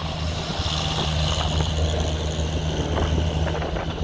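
Small snowplow's engine running steadily, a loud low drone with a steady hiss above it.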